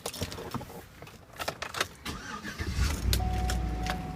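Clicks and rattles of keys and handling, then about two and a half seconds in a 2010 Chevy Avalanche's 5.3-litre V8 cranks and starts, settling into a low rumble with a steady tone alongside.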